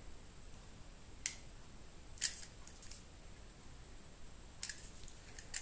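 A few short, sharp clicks of small cable parts being handled and fitted by hand, the loudest about two seconds in, over a faint steady high-pitched tone.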